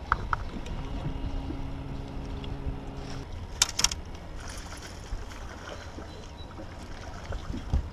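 Wind buffeting the microphone and water slapping against a bass boat's hull. A low hum runs through the first few seconds, and a quick cluster of sharp clicks comes about halfway through.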